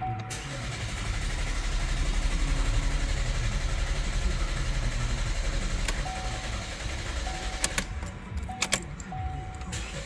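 Starter cranking the 2018 Chevrolet Cruze's 1.4 L turbocharged four-cylinder steadily for several seconds in clear-flood mode: the accelerator is floored, so the injectors are cut and the engine is spun without firing. A dashboard chime beeps repeatedly in the second half, with a few sharp clicks near the end.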